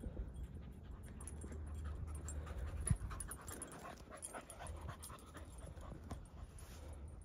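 Rapid, irregular panting breaths close to the microphone over a steady low rumble, with a single bump about three seconds in.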